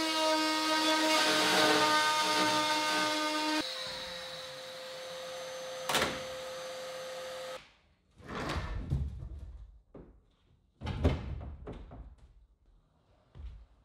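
A handheld power tool cutting through a foam-core composite panel with a loud, even buzzing whine for about three and a half seconds. A lighter, steady hum carries on, with one sharp click, and stops about seven and a half seconds in. A few short knocks and scrapes follow.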